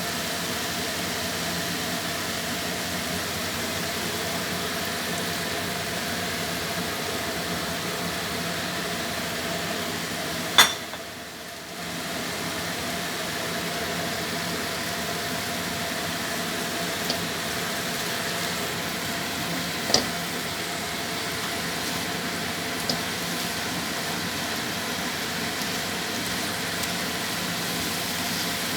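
A steady mechanical hum with a faint held tone, broken by one sharp click about ten seconds in and a few fainter clicks later.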